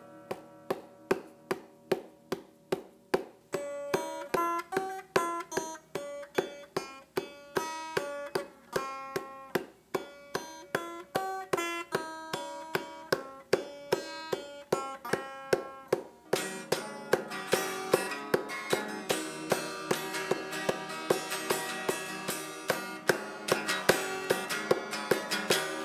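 Background music: a tune of quick, evenly paced notes, growing fuller and busier about sixteen seconds in.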